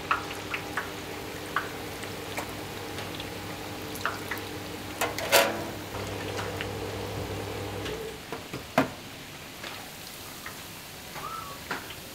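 Falafel sizzling in a deep fryer's hot oil, with the wire skimmer clinking against the steel fryer now and then, two clinks louder than the rest. A steady machine hum runs underneath and stops about two-thirds of the way through.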